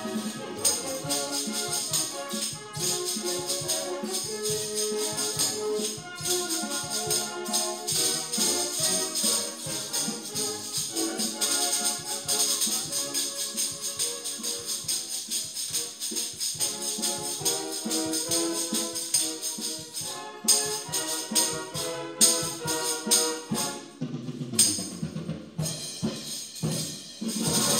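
Timbrels (Salvation Army tambourines) shaken and struck in time with recorded band music, their jingles ringing throughout. A run of sharp, separate timbrel strikes comes in the last third.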